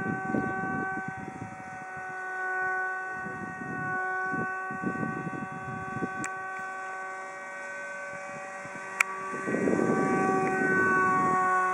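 Steady whine of a depron RC F-22 Raptor model plane's motor in flight, one held pitch with several overtones; the flyers think it barely has enough thrust. Low rumbling noise comes and goes on the microphone, loudest about ten seconds in, and a single sharp click comes about nine seconds in.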